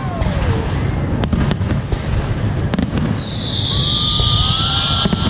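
Fireworks display: repeated sharp bangs over a continuous low rumble, with a whistle falling in pitch at the start and a loud steady hiss from a little past halfway.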